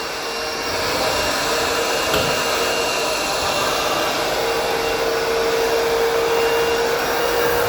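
Vacuum cleaner running steadily, a constant motor whine over the rush of suction air, as it pulls dust out of the stair carpet.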